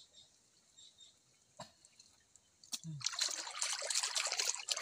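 A hand working through wet mud and shallow water: a couple of faint clicks, then, about three seconds in, a run of wet splashing and squelching.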